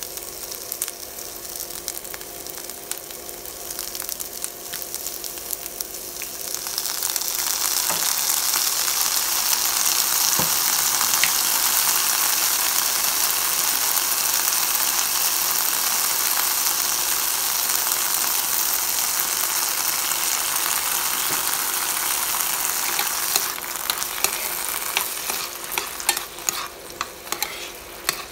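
Yard-long beans and garlic frying in a nonstick pan. A quiet sizzle grows much louder about seven seconds in and holds steady, then eases off near the end as a spatula stirs the beans with light scrapes and taps against the pan.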